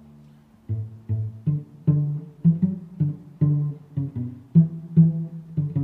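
Background music of low string instruments, a quick run of plucked notes in a steady rhythm.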